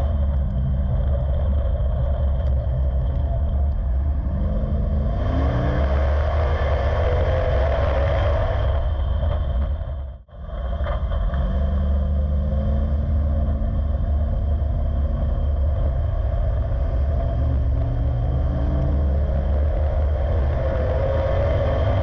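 Street stock race car's V8 engine heard from inside the cockpit at racing speed, revs climbing in rising sweeps as the car accelerates. The sound drops out almost to silence for a moment about ten seconds in, then the engine returns and revs up again.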